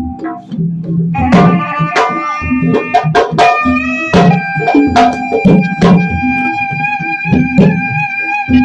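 Music with drums playing a steady rhythm; about a second in, a melody instrument joins on long held notes, with sharp struck accents over it.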